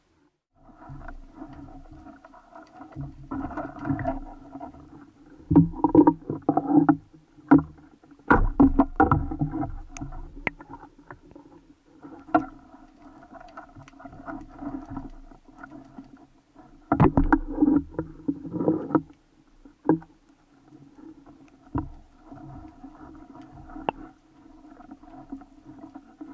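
Underwater sound picked up by a camera on a speargun: a steady droning hum, with louder bursts of rumbling and knocking about three seconds in, again around six to ten seconds, and near eighteen seconds, as a speared amberjack is hauled in on the shooting line.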